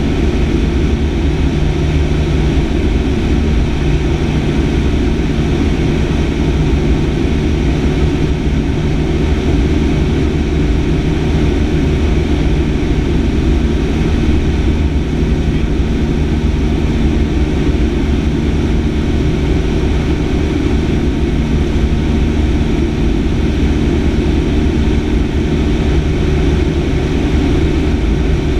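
Piston engine and propeller of a light single-engine airplane running steadily in cruise flight, heard from inside the cockpit.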